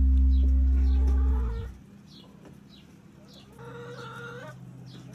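A loud, low, steady drone cuts off about a second and a half in. Chickens cluck faintly throughout, in short repeated calls.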